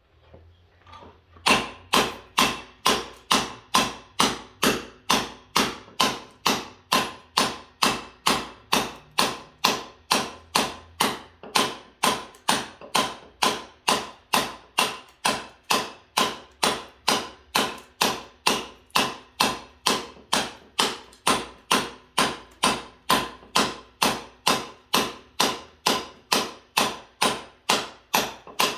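Hammer blows at a steady pace on building work, about two strikes a second, each with a short ringing tail, starting about a second and a half in. A faint low hum runs underneath.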